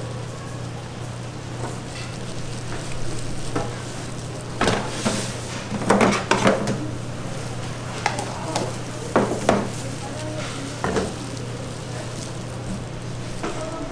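Dumpling-stall kitchen work: a steady low hum and hiss, with utensils and pans clattering in several bursts that are loudest around the middle.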